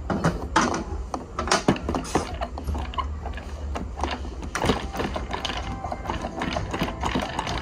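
Wooden play toys clicking and knocking as they are handled on a wooden table, including a toy popcorn machine being picked up and worked; the clicks come irregularly, several a second.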